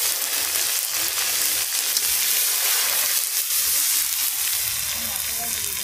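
Chopped tomatoes sizzling in hot mustard oil with cumin seeds in a kadai, a steady sizzle that eases near the end.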